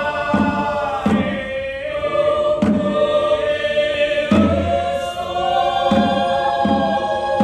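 A mixed choir of men and women singing in a chant-like style on long held notes, with a hand drum keeping a steady beat about once every three-quarters of a second.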